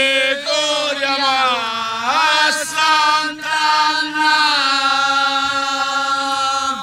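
Woman's voice singing a devotional pilgrims' chant, loud and close, in long held notes that shift in pitch about two seconds in and break off near the end.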